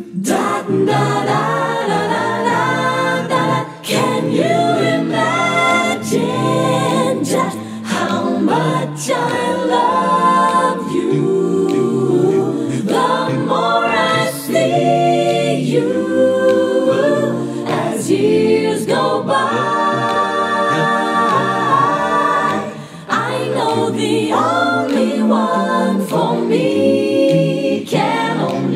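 An eight-voice a cappella vocal jazz ensemble singing in close harmony. The voices mix scat syllables such as "doo" and "dah" with sung lyrics over a bass voice line on "doom", phrase after phrase with brief breaks for breath.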